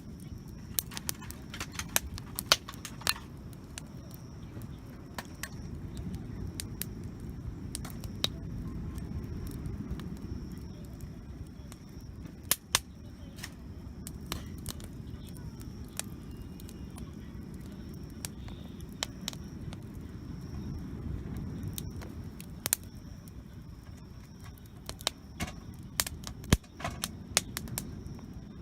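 Wood campfire crackling, with irregular sharp pops, some in quick clusters, over a steady low rumble.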